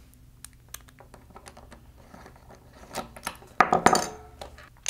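Small aluminum robot-chassis parts and steel screws being handled, with light metallic clicks and clinks, then a louder run of clattering about three and a half seconds in.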